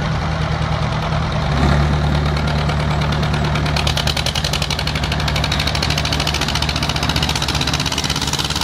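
The engines of an Ursus C-335 and a Massey Ferguson 135 tractor idle side by side with a steady, even knocking beat. About a second and a half in, the low engine note gets louder and stays that way.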